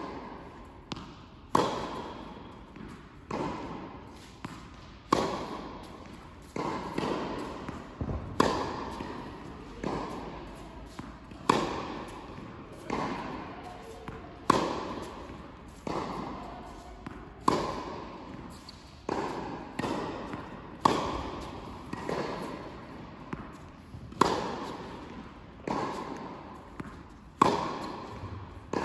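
Tennis groundstroke rally: sharp pops of the ball off racket strings and ball bounces on the hard court, about one every second and a half, each ringing out in the echoing indoor tennis hall.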